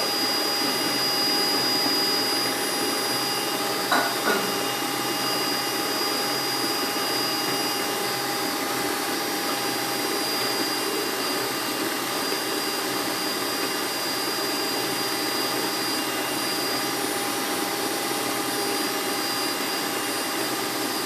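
Electric stand mixer running steadily as it beats cake batter, a continuous motor hum with a steady high whine. A couple of brief knocks about four seconds in.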